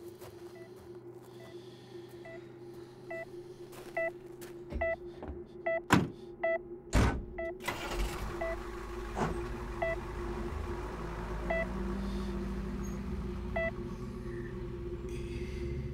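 A patient monitor beeping in short regular beeps that quicken about four seconds in, then slow and thin out to a few scattered beeps, which fits a patient's failing heartbeat. A steady low drone runs underneath, two loud hits land about six and seven seconds in, and a low rumble builds after them.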